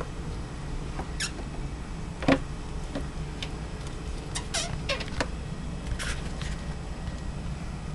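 Pet mink giving a few short, high-pitched squeaks and chirps, several close together near the middle, with one sharp knock about two seconds in.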